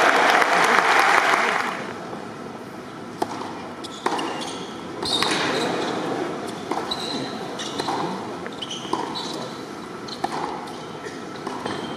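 Loud arena crowd noise for about the first two seconds, then a tennis rally on a hard indoor court: sharp racket hits on the ball about every one to two seconds, with short squeaks of shoes on the court between them over a murmuring crowd.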